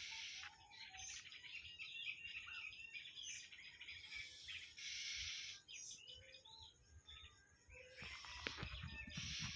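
Birds chirping and calling with short, repeated chirps and trills, with a few soft knocks near the end.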